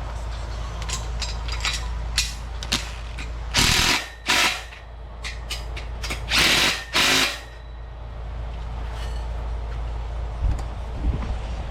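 Bolts being tightened on a steel power rack. A run of separate ratchet-like clicks is followed by two short, loud bursts of a power driver, about four and seven seconds in.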